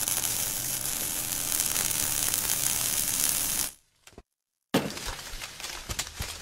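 Intro logo sound effect: a loud crackling, sizzling fire-like noise that cuts off a little over halfway through. After a short gap, a sudden hit brings back more crackling with scattered clicks.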